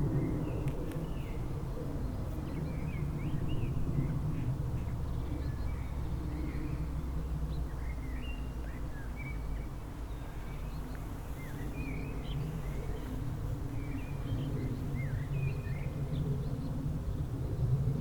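Small songbirds chirping in many short, scattered calls over a steady low rumble.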